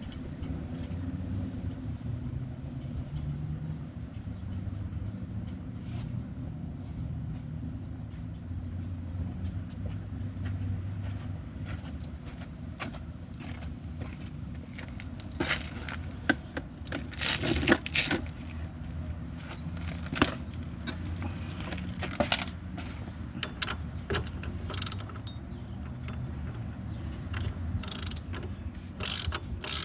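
A ratchet wrench clicking in short runs and metal tools clinking against the wheel hub parts, sparse at first and denser near the end, over a steady low hum. The clinking starts about halfway through.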